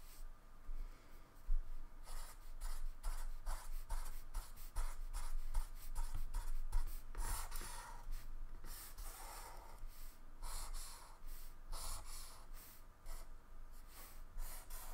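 Black felt-tip marker drawing on paper in many quick, short scratchy strokes.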